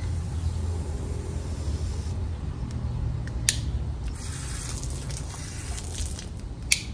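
Water spraying steadily from a Truper garden hose spray nozzle onto grass. Two sharp clicks come about halfway through and near the end as the nozzle's spray-pattern dial is turned.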